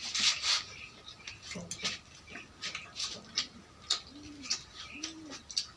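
A dove cooing, short arched low notes repeating less than a second apart and starting about four seconds in, over scattered sharp clicks and crackles.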